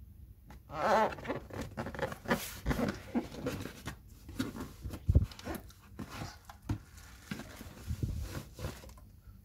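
A cardboard shoebox being handled and its lid opened: irregular scraping, tapping and rustling, with the wrapping inside being rustled. There is a single low thump about five seconds in.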